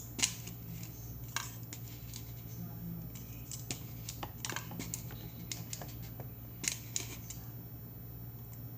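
A spoon clicking and scraping now and then against a bowl as slime ingredients are handled and stirred, with a steady low hum underneath.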